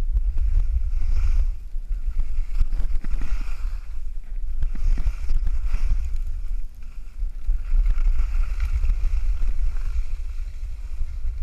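Wind buffeting a GoPro action camera's microphone during a ski run, a heavy low rumble, with the hiss of skis scraping over packed snow swelling and fading every second or two as the skier turns.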